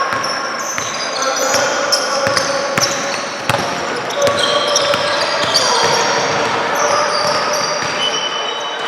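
Basketball game in a gym: a ball bouncing on the court and many short, high sneaker squeaks, over players and spectators calling out, with a sharp knock about three and a half seconds in.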